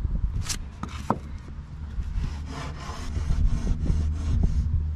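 Rough-sawn green 2x6 lumber scraping and rubbing against other boards as a gloved hand shifts a joist into place, with a run of short scraping strokes in the second half. A steady low rumble lies underneath.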